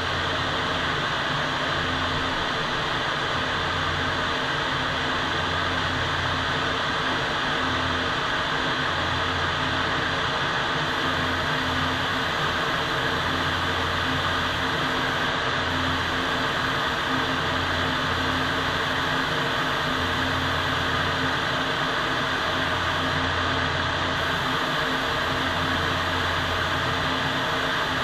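Paint spray booth's ventilation fans running: a steady rush of air with a low hum underneath.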